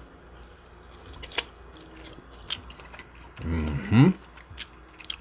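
Close-miked chewing of a deep-fried chicken wing, with scattered wet mouth clicks. About three and a half seconds in comes a short hummed vocal sound that rises in pitch.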